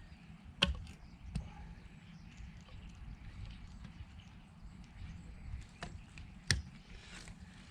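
Poly water pipe being cut to take out a section: a few sharp snaps, the two loudest about half a second in and near the end, over a low rumble.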